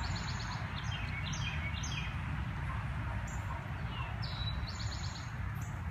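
Songbirds chirping in several short trilled phrases of rapid repeated high notes, over a steady low outdoor rumble.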